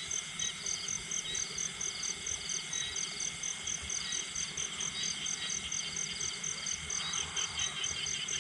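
Crickets and other night insects chirping steadily: a high, even chirp about five times a second over a chorus of softer trills.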